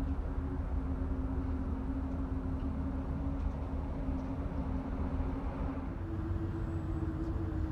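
Building vent pipes exhausting warm vapor, giving off a steady droning hum with overtones over a deep rumble. The hum steps slightly higher in pitch about six seconds in.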